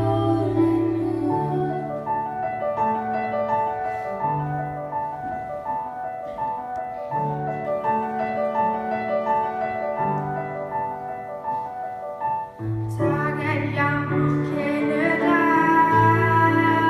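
Girls' voices singing with piano accompaniment. The singing stops about a second in, leaving a piano interlude of repeating broken-chord notes over slow bass notes, and one girl's voice comes back in about thirteen seconds in.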